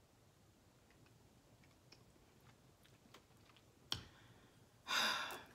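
Red wine being gulped from a glass, with faint small clicks of swallowing, a sharp click about four seconds in, then a loud breathy exhale lasting about half a second after the drink.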